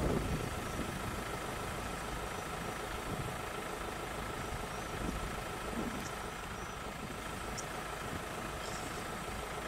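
A vehicle engine idling steadily with a low hum, with a few faint high chirps over it.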